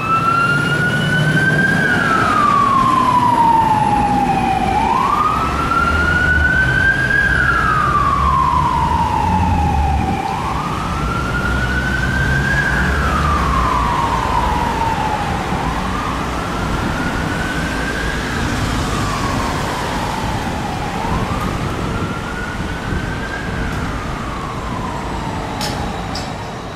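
Fire truck's electronic siren on the wail setting: a slow, repeated rise and fall about every five seconds, over the truck's engine rumble. It fades away near the end.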